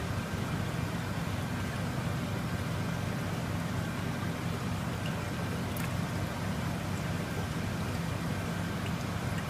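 Steady low machine hum under a constant hiss, with one faint tick about six seconds in.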